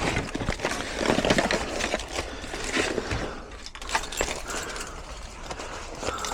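Tools and cans being moved about and knocked together while someone rummages through a cluttered work van, a run of short knocks and clatters.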